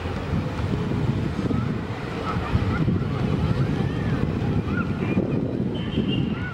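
Wind rumbling and buffeting the microphone, with a few faint, short high calls above it.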